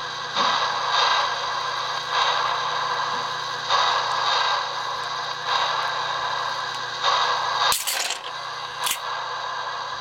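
Lionel sawmill accessory's vibrating mechanism buzzing and rattling in uneven surges over a steady hum. Nearly eight seconds in, the logs tumble off the log dump car with two sharp clatters about a second apart.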